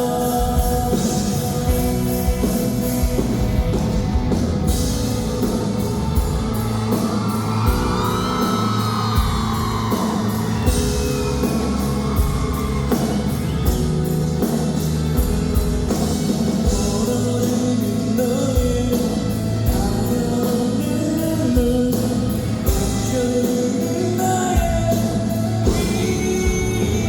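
Live rock band playing with a male lead vocal over a steady drum-kit beat.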